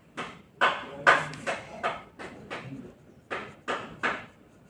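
A drawing tool scratching across paper in about ten quick, separate strokes, uneven in spacing and loudness.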